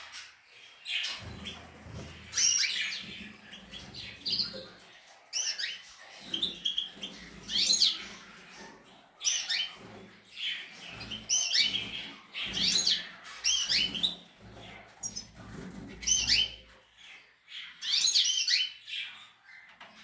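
Caged European goldfinches and canaries twittering and calling: short, fast chirping phrases that come every second or two.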